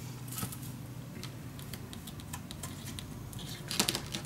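Faint scratching and small ticks of a craft weeding tool picking at the edge of watercolour paper, then a quick cluster of sharper clicks near the end as the tool is set down on the wooden tabletop.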